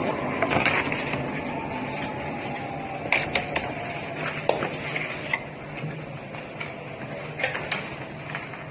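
CNC carton sample cutting table running: a steady machine hum with a faint whine that falls slowly in pitch over several seconds, and scattered sharp clicks and taps.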